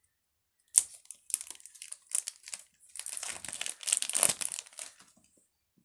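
Clear plastic shrink-wrap being torn and peeled off a smartphone's retail box: crinkling and crackling film, starting with a sharp snap about a second in and growing denser and louder toward the end before stopping.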